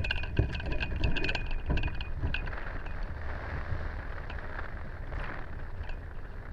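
A hang glider launch heard from a camera on the glider. For the first two seconds or so there is a quick run of clicks and knocks as the pilot runs off the slope. Then, once airborne, there is an even rush of wind noise on the microphone.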